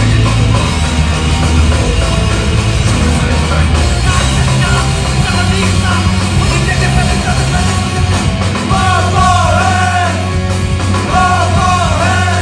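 Live punk/metal band playing loud with electric guitars, bass and drums. From about eight seconds in, a high melodic figure repeats over the top of the band.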